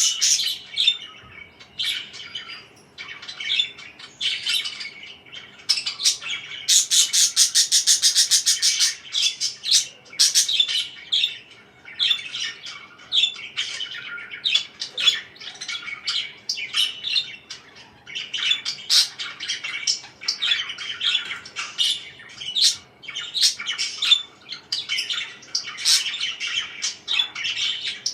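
Parakeets chirping continuously in quick, overlapping calls. About seven seconds in comes a loud run of rapid repeated notes, around eight a second, lasting a couple of seconds.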